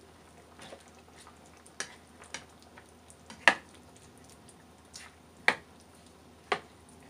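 A spoon stirring a thick chicken and potato stew in a pan, with about five sharp taps and knocks against the pan; the loudest comes about three and a half seconds in.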